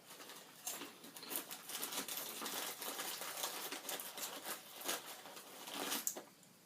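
Crunchy corn-curl chips (Vitner's Crunchy Kurls Limón) being chewed and handled in their bag: a dense run of irregular crisp crackles that stops about six seconds in.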